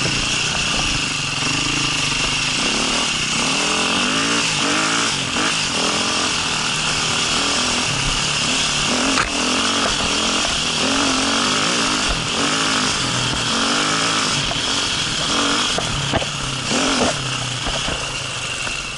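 Enduro motorcycle engine revving up and down as it is ridden over a dirt trail, with steady wind noise on the microphone. A sharp knock is heard about nine seconds in.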